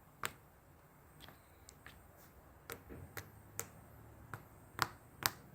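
A run of short, sharp clicks and taps at an uneven pace, about nine over five seconds, the loudest near the end.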